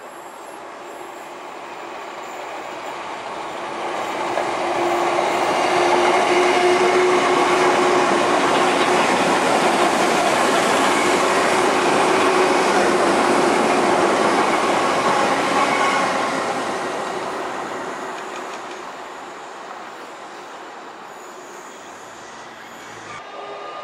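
Electric commuter trains passing on overhead-wired tracks: their rumble on the rails swells over a few seconds, stays loud for about ten seconds, then fades away.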